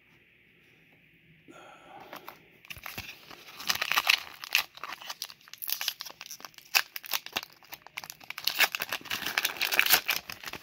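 Foil Pokémon Scarlet & Violet booster pack crinkling and tearing as it is handled and ripped open. The crinkling starts about two seconds in and runs on in quick, crackly bursts.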